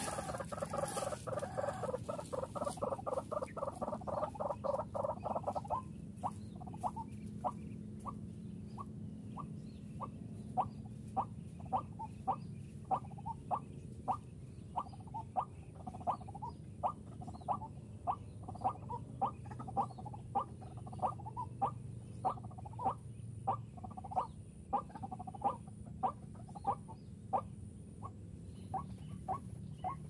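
White-breasted waterhen call played back as a lure: a fast run of chattering notes that stops about six seconds in, then single short calls repeated steadily about one and a half times a second.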